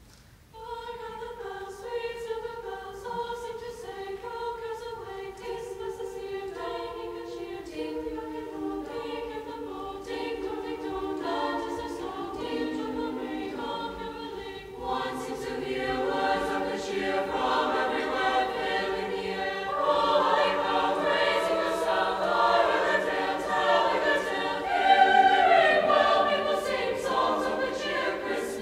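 High school choir singing a Christmas piece. The voices come in about half a second in with short stepping notes, then grow fuller and louder, with a lift at about 15 seconds and another at about 20 seconds.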